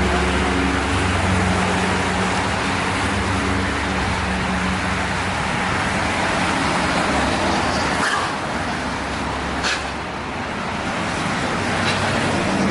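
Road traffic going by on a busy road: a steady rush of engines and tyres, with a low engine hum through the first few seconds.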